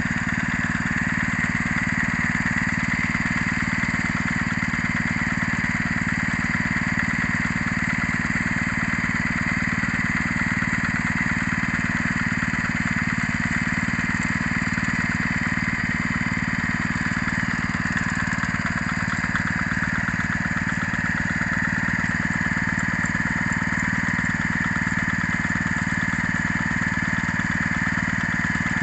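Small Honda petrol engine on a two-wheel hand tractor running steadily at an even speed, idling while the tractor stands still.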